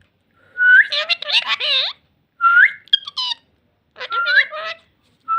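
Pet talking parrot vocalizing in three bouts, each opening with a sharp rising whistle and running into quick, speech-like chatter, with a fourth whistle starting near the end.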